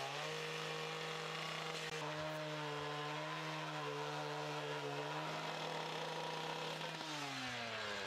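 Stihl two-stroke petrol cut-off saw running at full speed while its abrasive disc grinds through a steel section. Near the end the engine winds down as the saw is lifted off the cut.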